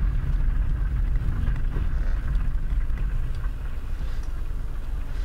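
A car's engine and road noise, heard inside the cabin as a low, steady rumble, with the car rolling slowly.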